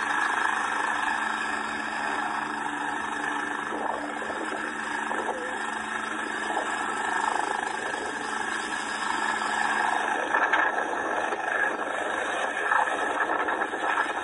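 Air ambulance helicopter's turbine engines and rotor running loud and steady as it lifts off the helipad and climbs away.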